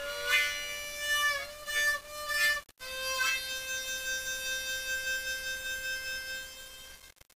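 C diatonic harmonica played blues-style. It starts with several short notes that slide slightly in pitch, breaks off briefly, then holds one long note that fades out near the end.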